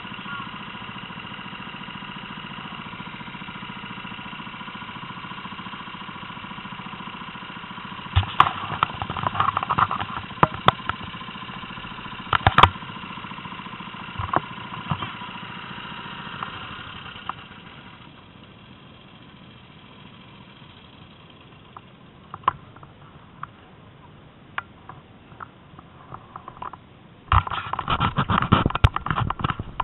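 Rental go-kart engines running at low speed, a steady hum broken by knocks and clatter. The engine sound fades out about two thirds of the way through. Loud crackling starts near the end.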